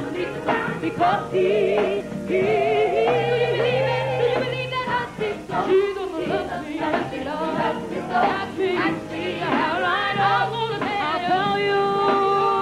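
Women's gospel vocal group singing live with instrumental accompaniment. The voices swoop and waver in pitch over long held bass notes and a steady beat.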